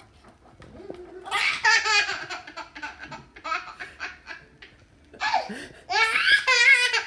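A toddler laughing in high-pitched, pulsing bursts: a first run of laughs about a second in, a short one near the middle, and the loudest laughter in the last two seconds.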